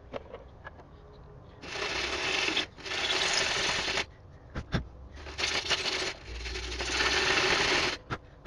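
Metal being sanded to bare metal for a clean ground connection: four long rasping sanding strokes, with a few small clicks between them.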